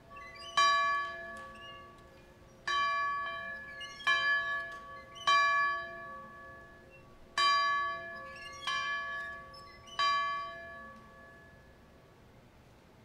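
Large yoke-mounted church bell swung by hand, ringing seven strokes at uneven spacing of one to two seconds, each stroke ringing on and fading; the last stroke dies away over the final few seconds.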